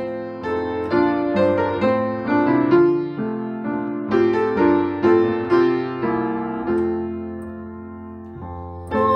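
Gentle piano music: a slow melody over chords, each note struck and fading. It starts abruptly, and a phrase dies away near the end before the next one begins.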